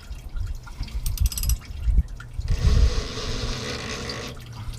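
Diesel fuel running and dripping from a Ford 6.7L Power Stroke fuel filter housing into a drain bucket partly full of oil, the flow louder for a couple of seconds after the midpoint, with low thumps and a few clicks of handling.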